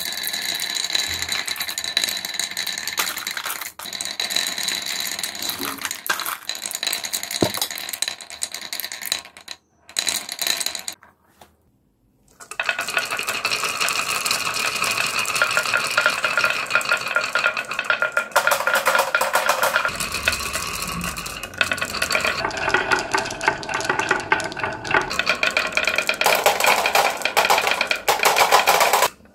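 Many marbles rolling through carved wooden wave-track blocks, clicking and clattering against the wood and against each other in a dense, continuous rattle. It cuts out briefly twice near the middle.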